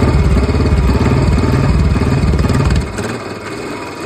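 Old-model Royal Enfield Bullet single-cylinder engine running with a fast, even thump, then dropping back to a quieter idle about three seconds in. The bike was brought in for a noise coming from the engine.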